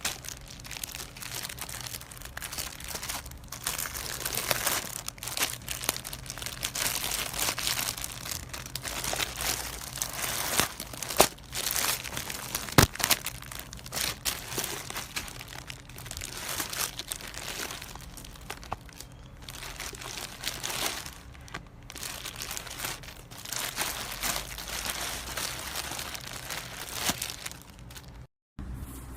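Packaging being crinkled, crumpled and torn open, a continuous crackling with one sharp click about a third of the way through.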